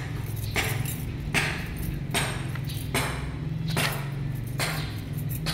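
Plastic bag and tinsel cat toy rustling in short swishes, a little more than once a second, as it is swung back and forth, over a steady low hum.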